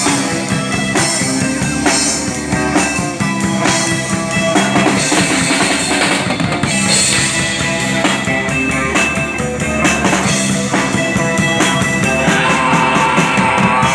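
Live rock band playing an instrumental passage without vocals, with the drum kit's bass drum and rimshots prominent in a steady beat over amplified instruments.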